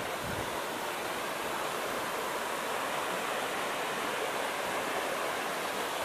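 Small waterfall pouring over limestone ledges into a rock pool, a steady, even rush of falling water.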